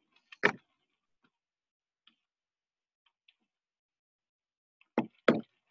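Sharp computer clicks close to the microphone: one about half a second in and a quick pair near the end, with a few faint ticks between.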